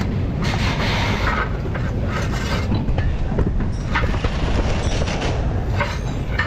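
Steady low rumble of machinery in a workshop, with a few sharp metallic clinks as a steel jack stand is handled and set under the front hub.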